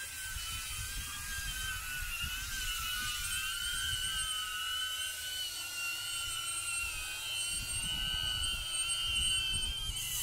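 DJI Avata FPV drone's propellers whining steadily, the pitch wavering up and down as the throttle changes, over a low rumble.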